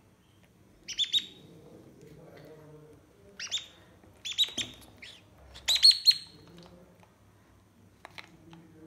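African grey parrot chick calling in about five short, harsh bursts, the loudest near the middle.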